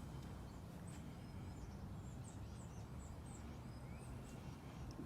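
Birds chirping faintly: a run of short, high chirps repeated every fraction of a second, over a steady low rumble.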